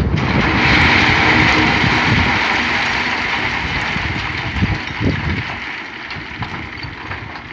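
Tipper truck dumping a load of stone: a loud rushing clatter of rock sliding off the raised bed. It is strongest in the first couple of seconds and slowly fades, with a few heavier thuds about halfway through.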